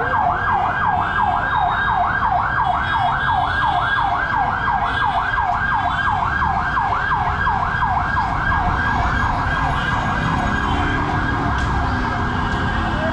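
A siren sounding a fast yelp, its pitch sweeping up and down about three to four times a second, over steady street noise.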